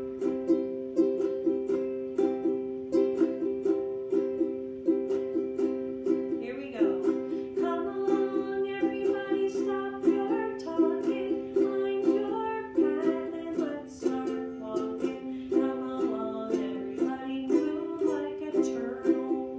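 Ukulele strummed in a steady, even rhythm, chords ringing. A voice joins with a wavering melody over the strumming from about seven seconds in.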